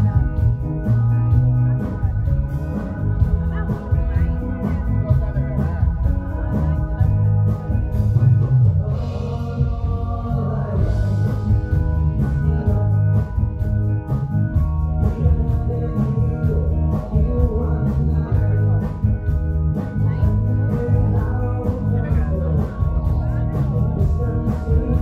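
A live band playing upbeat dance music, with a steady drum beat, bass, electric guitars and keyboard, and a singer.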